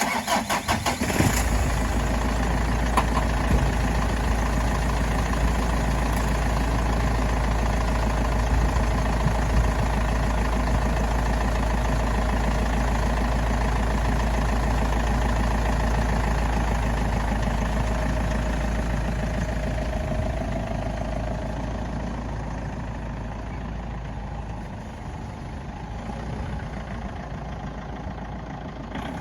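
Ford Ranger's diesel engine cranking and catching, then running steadily, growing somewhat quieter over the last third.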